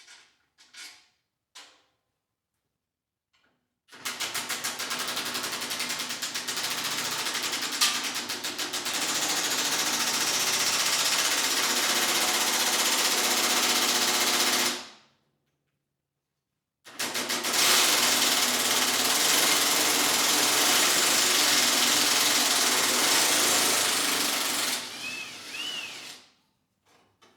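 A power tool running in two long bursts of about ten seconds each, with a fast rattling hammer at the start of the first, while work is done on the mower deck's rusted bracket hardware.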